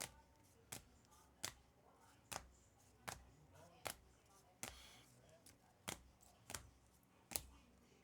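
Trading cards being set down one after another on a table, a sharp click about every three-quarters of a second, ten in all.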